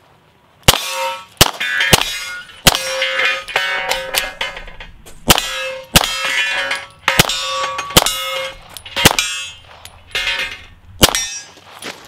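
A string of rapid 9mm pistol shots from a CZ Shadow 2 in competition, about a dozen, fired in quick pairs and singles with a pause of a couple of seconds in the middle, each followed by a short metallic ring.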